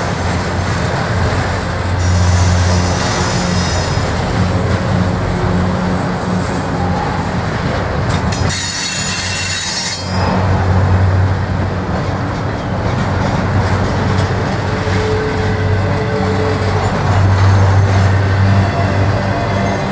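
Double-stack intermodal container well cars of a freight train rolling past at close range: a steady, loud rumble of steel wheels on the rails.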